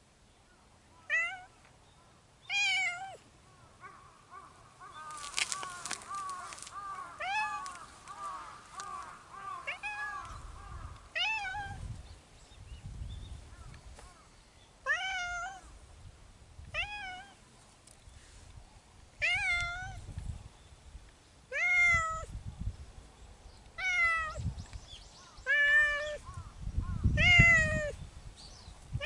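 Cat meowing over and over, more than a dozen short meows, each rising and falling in pitch, one every second or two.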